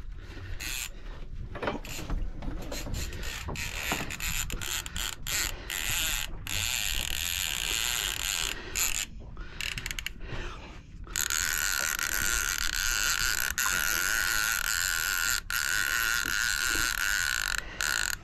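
Fishing reel under load from a hooked tope, its gears and ratchet clicking as line is worked. From about eleven seconds it changes to a steady, louder buzz that lasts about seven seconds.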